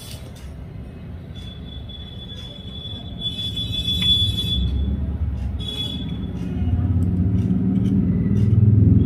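A low rumble that grows louder from about three seconds in, with a high steady tone above it for a few seconds in the middle.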